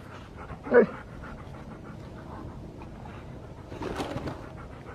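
Husky puppy panting and snuffling while it nuzzles and carries an inflatable ball, with one short, loud, falling cry about a second in and a louder burst of breath noise about four seconds in.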